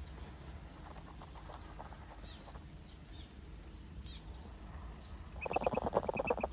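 Swan cygnet giving a few faint peeps, then a louder, rapidly pulsing trill about five and a half seconds in that lasts about a second.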